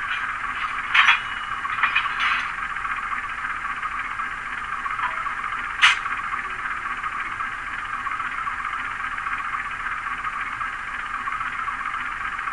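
ESU LokSound Select decoder playing a GE FDL diesel idling through the small speaker of a stationary HO-scale GE U20C model locomotive, a steady thin, hissy engine sound with no deep bass. A few brief sharp sounds stand out about a second in, around two seconds in, and near six seconds.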